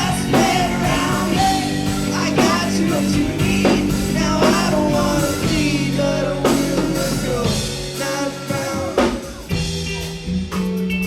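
Live rock band playing a song: drums, guitar and bass with a singer. Near the end the low bass drops out for about a second, then comes back in.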